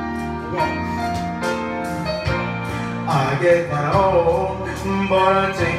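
A recorded music track playing, and about three seconds in a man begins singing over it into a handheld microphone.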